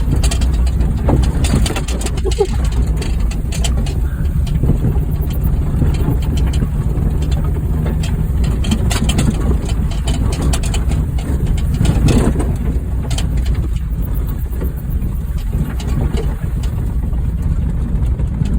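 Stripped-down Honda Fit's four-cylinder engine running steadily at low speed while driving on a rough dirt road, with frequent clicks and rattles over the uneven ground.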